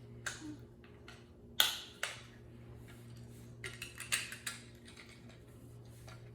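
Chunky plastic Duplo bricks being handled and pressed together: a few scattered clicks and knocks, the sharpest about a second and a half in, then a quick cluster of clicks past the middle. A steady low hum runs underneath.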